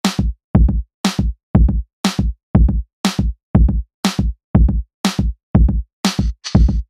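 Electronic background music: a drum-machine beat whose pattern repeats about once a second, with low kick drums.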